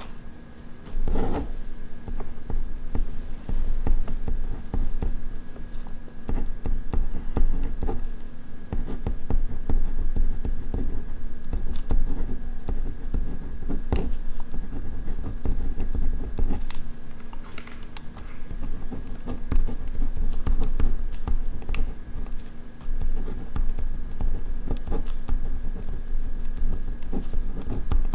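Ballpoint pen writing on paper, close to the microphone: a steady run of short scratching strokes and light taps of the pen tip, with a faint steady hum underneath.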